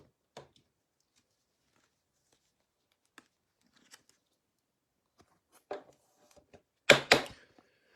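Trading cards being handled and gathered into a stack: faint scattered clicks and rustles, then a couple of loud, sharp handling noises about seven seconds in.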